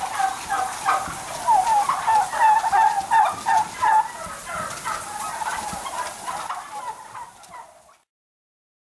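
A flock of domestic turkeys calling in a barn, many short calls overlapping. They fade away over the last few seconds and then cut off suddenly.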